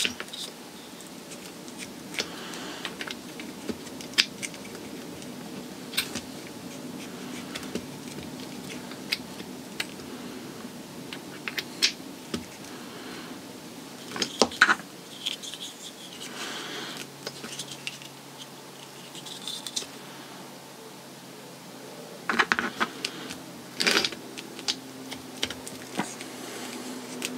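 Scattered clicks and light scrapes of plastic QS8 connectors and wire being handled and plugged together by hand, with denser clusters of clicks about halfway through and again near the end.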